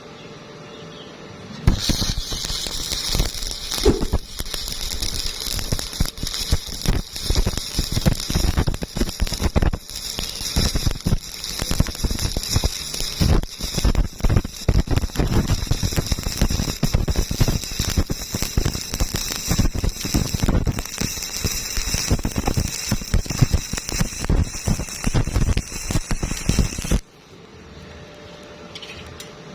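Electric welding arc burning steadily with a dense, irregular crackle. It strikes about two seconds in and cuts off abruptly near the end.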